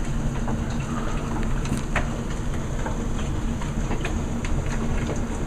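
Hailstones, about quarter size, pelting down in a steady downpour: a continuous patter with many scattered sharp ticks of individual stones striking, over a low steady hum.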